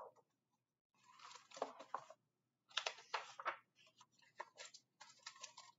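Faint rustling and handling of a picture book's paper pages as they are turned, in a few short irregular bursts.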